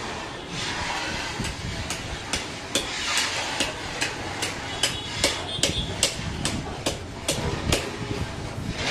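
A heavy butcher's knife chopping into a hanging goat carcass, a run of sharp chops on meat and bone, about two a second and unevenly spaced, starting about a second in.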